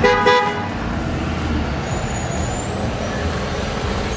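A short vehicle horn toot, lasting about half a second at the start, then a pickup truck's engine running steadily as it pulls up slowly.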